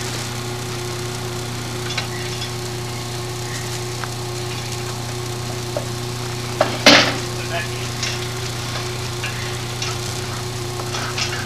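A steady mechanical hum runs under scattered knocks of tools on metal while a lawn mower is worked on. A louder clank comes about seven seconds in.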